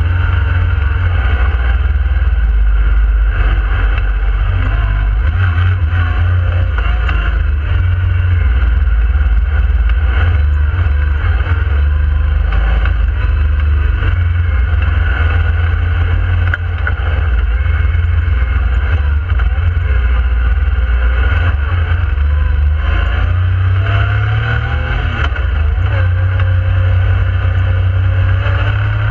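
Yamaha YXZ1000R side-by-side's three-cylinder engine running under way, heard from inside the cab, its pitch rising and falling with the throttle. About three-quarters of the way in, it climbs steadily as the machine accelerates.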